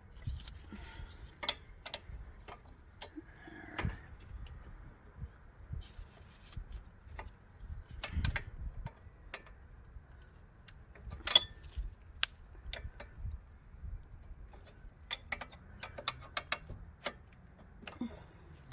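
Irregular metallic clicks and clinks of a hand tool working a just-loosened front brake caliper bolt out, with one sharper clink about eleven seconds in.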